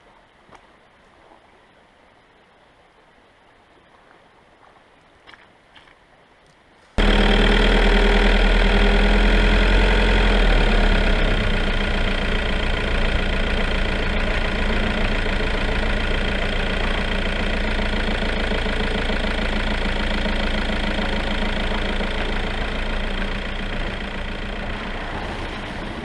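A vehicle's engine running steadily while driving along a dirt track, starting abruptly about seven seconds in and slowly fading near the end. Before it, only quiet with a few faint clicks.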